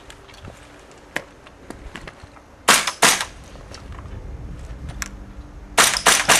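Airsoft guns firing sharp single pops: two loud shots about a third of a second apart near the middle, a few fainter clicks, and a quick run of three or four shots near the end.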